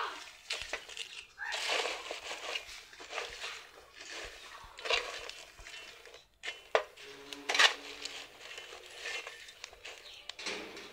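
Dry banana peels burning on an iron sheet, crackling and rustling irregularly, with a few sharp clicks, the loudest a little past the middle.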